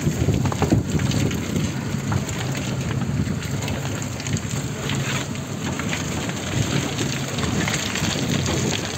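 An SUV's engine running at low speed as it crawls over a muddy, rutted track, with scattered knocks and wind noise on the microphone.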